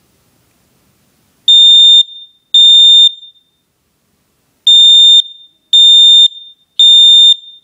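Kidde Nighthawk smoke alarm sounding its test alarm: loud, high-pitched beeps, two, then after a pause of about a second and a half, three more, in the standard three-beep evacuation pattern. Pressing the test button also clears the unit's alarm memory.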